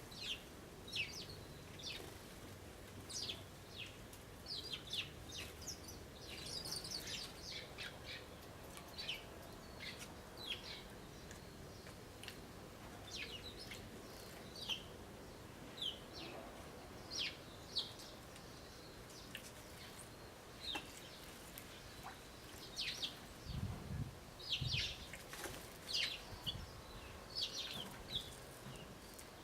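Eurasian tree sparrows chirping, short calls repeated on and off, with a few low thumps about three-quarters of the way through.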